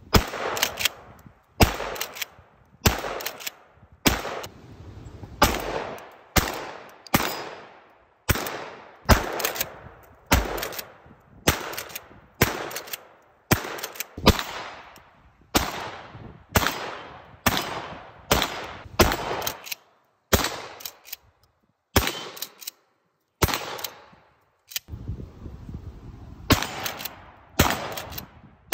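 Short-barrelled 12-gauge shotguns, a Remington 870 pump and a Remington Model 11 semi-auto, firing shot after shot at about one a second, each blast trailing off in an echo. The firing thins to a few shots for several seconds about two-thirds of the way through, then picks up again.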